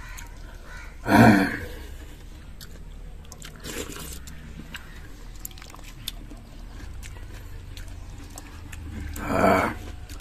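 Eating sounds of a person taking mouthfuls of watery soaked leftover rice (pazhaya soru) with curd, shallots and green chilli, eaten by hand. There are two loud mouthful sounds, one about a second in and one near the end, with faint chewing ticks between them.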